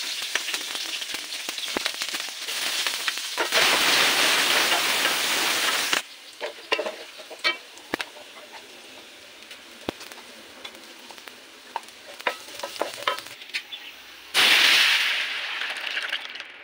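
Food frying in hot oil in an electric skillet: a loud steady sizzle for the first six seconds, then a quieter stretch with small scattered clicks, and a loud sizzle again near the end.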